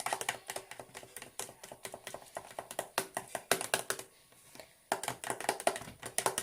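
Homemade slime being kneaded and squished, a dense run of sticky clicks and pops with a short pause about four seconds in.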